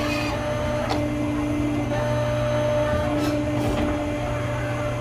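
Ride-on mini excavator's motor humming steadily, with a whine that cuts in and out as the digging arm is worked, and a single click about a second in.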